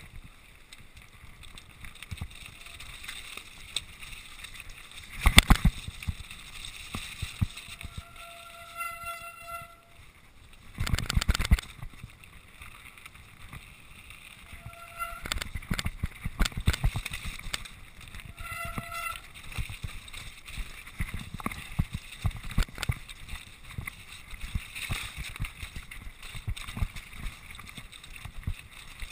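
Mountain bike rattling and knocking over loose rock on a fast descent, with wind rushing over the camera. There are heavier jolts about five and eleven seconds in, and a few brief high squeals.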